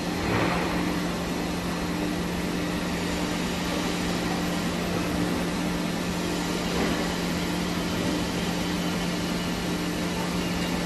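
Large hydraulic moulding press and its power unit running in a factory: a steady machine hum with a constant low tone over a wash of workshop noise.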